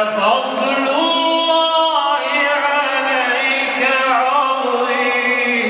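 A man's voice reciting the Quran in slow, melodic chanted tartil, holding long notes that glide up and down in pitch without a break.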